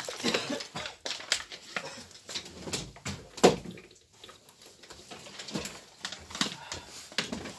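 Household handling noise: irregular knocks, clatter and footsteps of people moving about a room, as a backpack is carried and set down on a chair. One louder thump about three and a half seconds in.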